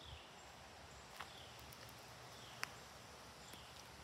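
Faint outdoor quiet with a small high chirp, falling in pitch, repeated about once a second, and a couple of soft clicking footsteps on concrete.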